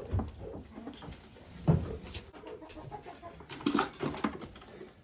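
Goats moving about in a barn: scattered hoof steps and knocks, with one louder thump a little under two seconds in and a few more near the end.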